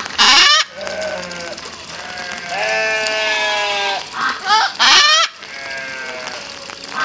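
Macaws calling: two very loud, harsh squawks, one just after the start and one about five seconds in, with quieter drawn-out, wavering calls between them.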